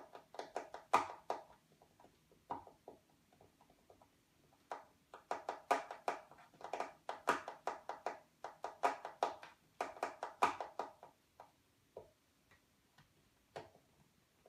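A computer mouse button clicked over and over in quick irregular bursts, the densest through the middle, with a faint steady low hum underneath.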